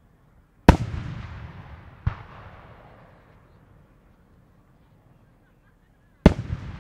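Japanese aerial firework shells bursting. A loud boom comes under a second in with a long rolling tail, a softer bang follows about a second and a half later, and another loud boom comes near the end.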